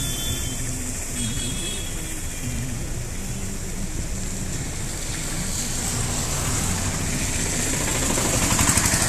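Road-traffic noise: a steady low engine rumble that grows gradually louder toward the end as a vehicle draws close.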